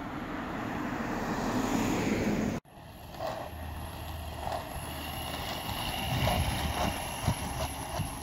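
Outdoor road noise with wind on the microphone: a rising rush that cuts off abruptly about two and a half seconds in, then a lower, uneven rumble with scattered light knocks.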